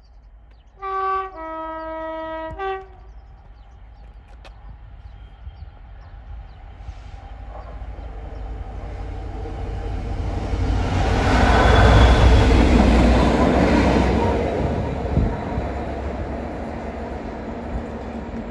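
Class 66 diesel locomotive sounding its two-tone horn: a short higher note, a longer lower note, then the higher note again briefly. Its engine and wheels then grow louder as it passes, peak about twelve seconds in, and fade.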